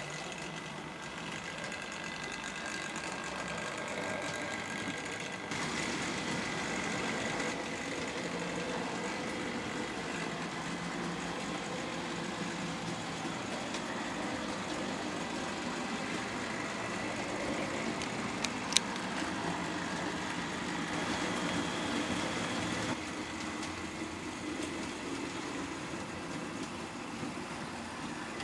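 OO gauge model trains running: the steady whirr of small electric locomotive motors and the rattle of wheels on the track. It gets louder about five seconds in and drops back near the end, with one sharp click about two-thirds of the way through.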